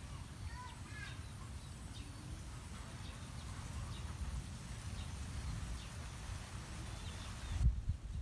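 Wind rumbling on the microphone, with faint, short high chirps over it, then a couple of low thumps near the end.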